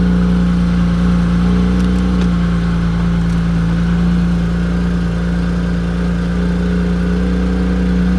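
BMW N54 twin-turbo 3.0-litre inline-six idling steadily just after starting, running again after sitting for a while.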